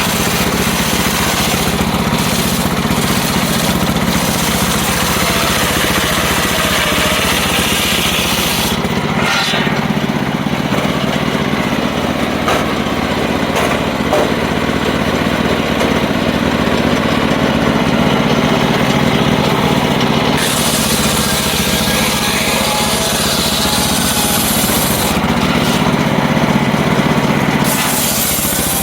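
Circular saw running steadily while sawing wood, a continuous mechanical drone with changes in its high-pitched edge partway through.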